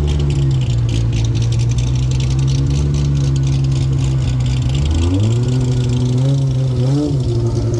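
Car engine running at low revs close by, its pitch rising around five seconds in, with a short rev blip near seven seconds.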